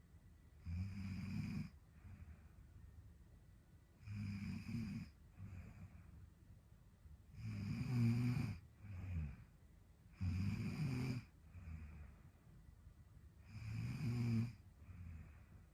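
A young woman snoring in her sleep, with five loud snores about every three and a half seconds, each followed by a softer breath.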